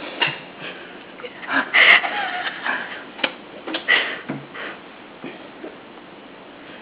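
A metal spoon clicking and knocking irregularly against a hard dish or tray, in clusters of sharp taps.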